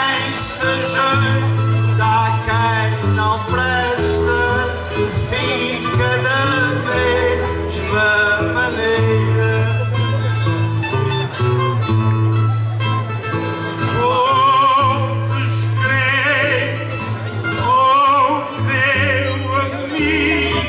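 Plucked-string accompaniment of acoustic guitars keeping a steady repeating bass and chord pattern, with a Portuguese guitar picking a wavering melody over it, and a man's singing voice in places.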